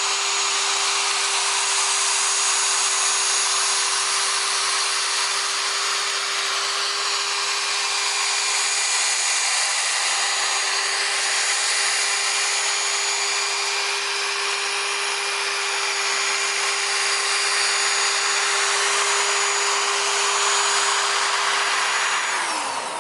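Electric polisher with a wool pad running steadily at speed, the pad rubbing cutting compound across the painted fender, with a steady motor hum and whine. Near the end it is switched off and its pitch drops as it spins down.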